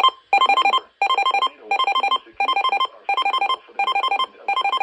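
Electronic alert tone: a repeating pattern of short bursts, each a quick run of four to six bright beeps at fixed pitches, about seven bursts in all, coming roughly every 0.7 s.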